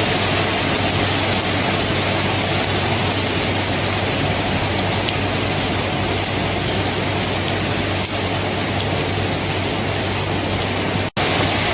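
Steady rain falling, an even hiss with no pauses, that cuts out for an instant near the end before resuming.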